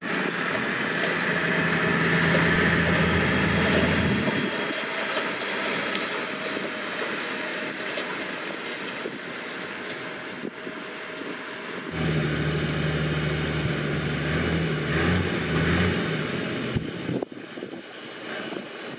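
Landini Legend 130 tractor engine running as it pulls a Claas Variant 280 round baler through straw, with the baler's machinery working along with it. The engine's low hum is stronger for the first few seconds and again from about twelve to sixteen seconds in, then fades near the end.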